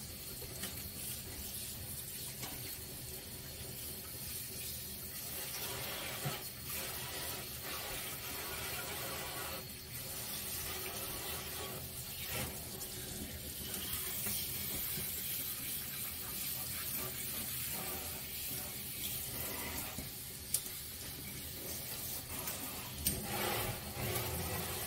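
Water spraying from a pull-down sink faucet's spray head onto a wet dog's coat in a stainless steel sink: a steady hiss of running water with a few brief dips.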